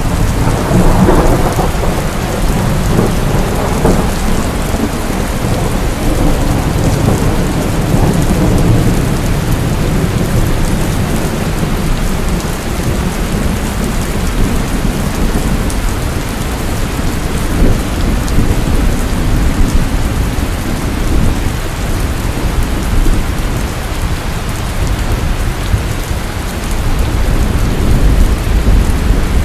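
Heavy rain falling steadily, with low rolling thunder rumbling underneath. The rumble swells in the first few seconds and again near the end.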